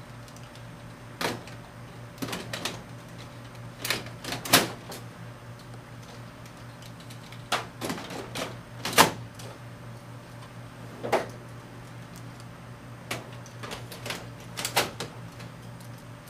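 Plastic toner cartridges being handled and pushed into the cartridge slots of an HP Color LaserJet CP4005 printer: a series of irregular clicks and knocks as they slide in and seat, the sharpest about four and a half and nine seconds in. A steady low hum lies underneath.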